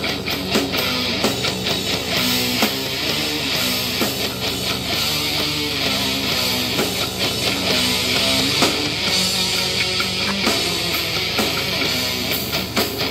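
Heavy rock music with electric guitar and a steady beat, played through the RC truck's custom-built audio system: two small speaker drivers in the body's rear panel.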